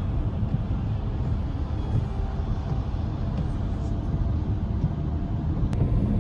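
A steady low rumble, with a single sharp click near the end.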